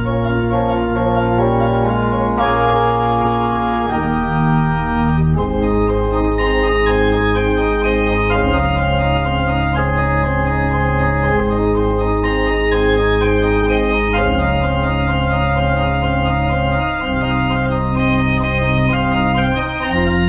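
Organ postlude: slow held chords over a sustained deep bass, the harmony moving every second or two.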